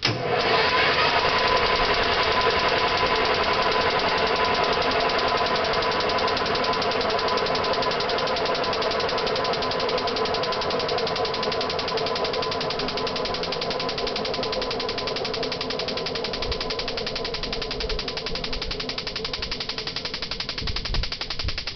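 Fairchild J44 turbojet engine running at a steady speed: a loud even rush with a steady whine and a fast, rough pulsing. It sets in abruptly and eases off slightly in loudness over the stretch.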